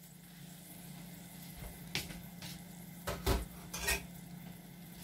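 A few short metallic clinks and knocks of a metal skimmer ladle against an aluminium wok, about two, three and four seconds in, the one near three seconds the loudest. A faint steady hum runs underneath.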